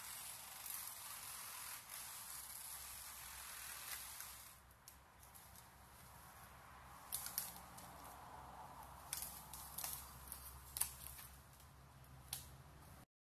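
Faint outdoor ambience: a low steady hiss with a faint hum underneath. About halfway through, several sharp clicks or snaps come at irregular intervals, and the sound cuts off abruptly near the end.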